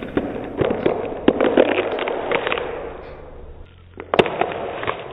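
Celery stalk being twisted and snapped as a Foley effect: a dense crackling full of sharp cracks, in two runs, the second opening about four seconds in with the loudest crack.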